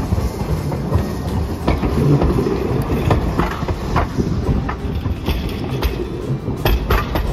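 Hiroden 5000-series Green Mover articulated low-floor tram passing at close range: a steady low rumble of the running gear, with sharp clicks as its wheels cross the junction's rail crossings and joints, several in quick succession near the end.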